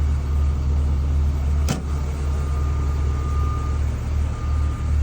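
Cummins 260-horsepower turbocharged diesel engine of a Knox Kershaw KBR-925 ballast regulator running steadily with a low rumble. A single sharp click comes about two seconds in, and a faint, thin high tone runs through the second half.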